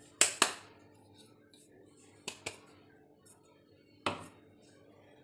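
Small stainless-steel cup knocked against a steel bowl to shake out ground cardamom-and-sugar powder: two sharp metallic clinks close together, then a few more spaced a couple of seconds apart.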